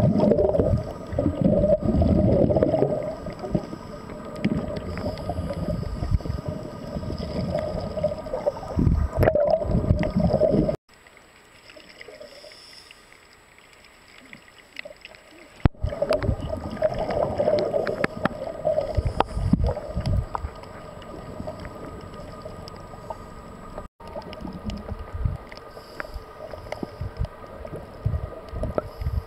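Underwater sound of scuba divers breathing through their regulators: irregular bursts of exhaled bubbles gurgling over a low rumble. The sound drops away abruptly about eleven seconds in and returns about five seconds later.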